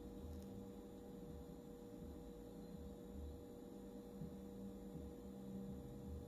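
Solar inverter-charger humming: a faint, steady electrical hum with a lower drone underneath that wavers in level.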